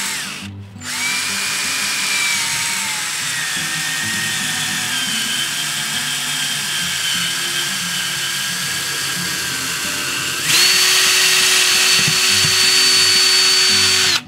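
Power drill running under load: its motor whine rises and sags as it drives in a fastener, stops briefly about half a second in, then starts again. About ten seconds in it jumps to a higher, louder whine and cuts off abruptly.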